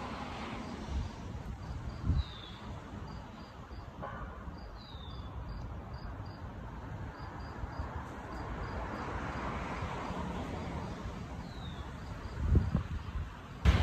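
Insects chirping in an even, quick rhythm, with three short falling chirps, over a low steady rumble. A few thumps near the end.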